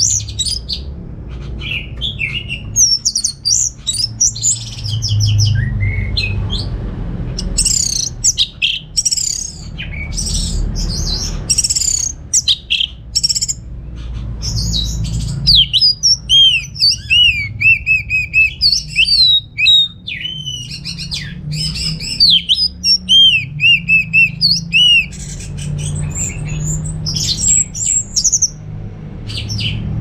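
Orange-headed thrush singing: a long run of short, varied whistled phrases with brief pauses between them, and in the middle a stretch of repeated sliding notes set lower than the rest.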